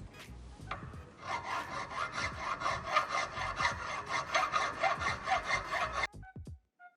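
Hand file being pushed back and forth across a workpiece to flatten its surface, a rasping scrape repeated a few strokes a second. The strokes get louder about a second in and stop abruptly about six seconds in.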